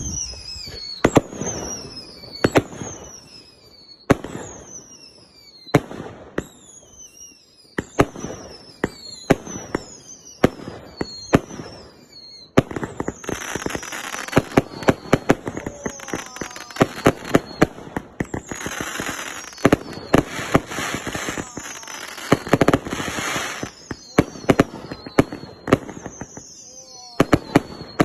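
A 100-shot, 1.2-inch whistling fireworks cake firing shot after shot: each launch gives a sharp pop followed by a whistle that falls in pitch. About halfway through the shots come thick and fast, with overlapping whistles and continuous hissing crackle, then thin out again near the end.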